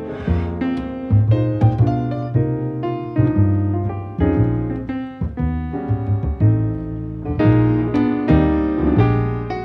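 Background piano music: notes and chords struck at an easy pace over a low bass line.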